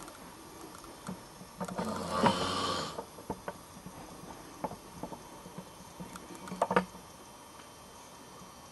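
A person snoring: one rough snore about two seconds in, lasting about a second and a half, then scattered faint clicks and a short louder crackle near the seventh second.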